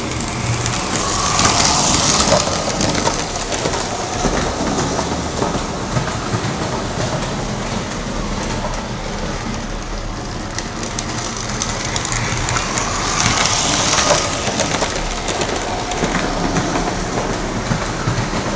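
Lionel 2245 Texas Special F3 O-gauge model diesel locomotive with its B unit running on three-rail track: a steady motor-and-gear whir with wheels clattering over the rails. It grows louder twice, about a second in and again about thirteen seconds in.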